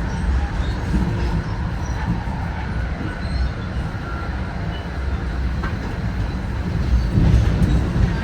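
Steady low rumble of a train rolling past, with faint brief high squeaks now and then.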